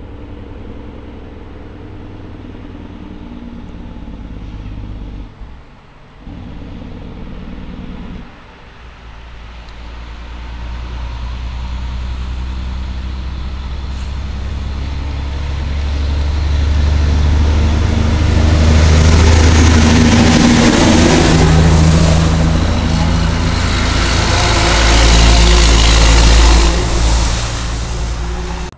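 A log truck's diesel engine hum grows steadily louder as the truck approaches and passes, with tyre noise on the road surging over the last ten seconds. The sound cuts off suddenly at the end.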